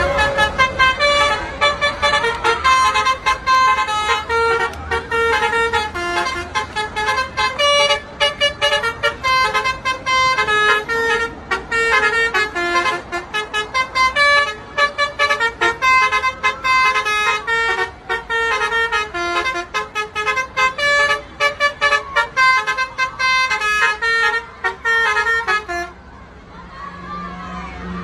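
Basuri telolet multi-tone horn on a tour bus playing a quick tune of short horn notes that step up and down in pitch. It stops about 26 seconds in.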